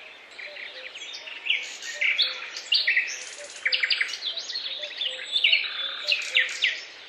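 Several songbirds singing together, a dense chorus of short high chirps and quick trills overlapping one another.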